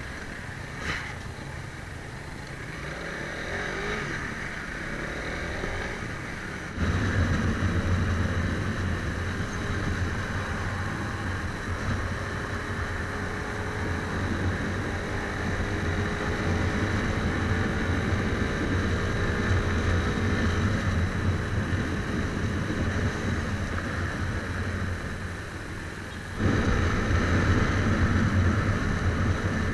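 Motorcycle engine running under way at highway speed, with heavy wind rumble on the microphone and the engine note slowly rising as it accelerates. The first few seconds are quieter, then it cuts suddenly to the louder riding sound.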